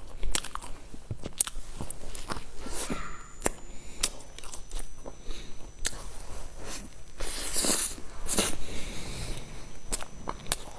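Close-up eating sounds: bites into a crusty, crumb-topped cream-filled bread roll, with crisp crunches and chewing. Sharp little crackles come throughout, with a longer run of crunching about two-thirds of the way through.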